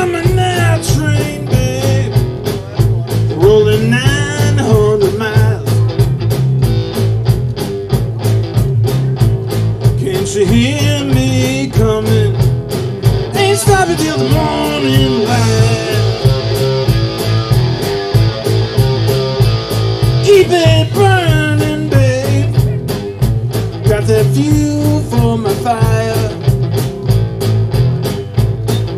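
Live rock band of electric guitar, electric bass and drum kit playing a blues-rock tune: guitar lines over a steady drum beat and bass line.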